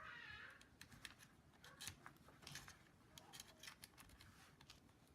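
Faint scattered clicks and light scrapes of a tiny USB wireless receiver being handled and pushed into a computer's USB port.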